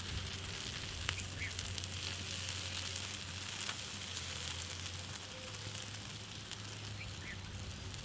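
Whole chickens roasting over glowing charcoal, with a steady sizzling hiss from the coals and a few faint crackles; a low steady hum runs underneath.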